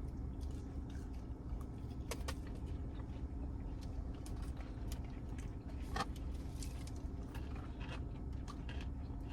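Steady low hum with scattered light clicks and rustles from people eating and handling food and its packaging.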